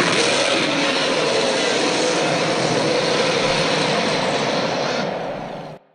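Sound-designed giant-ape monster roar layered from Kong, lion and tiger roars: one long, rough roar that holds for about five seconds, then fades and cuts off near the end.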